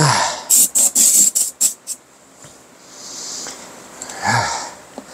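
Aerosol can of glass cleaner sprayed onto a Onewheel tire's rim in about five short hissing bursts in quick succession, with a softer hiss a second or so later.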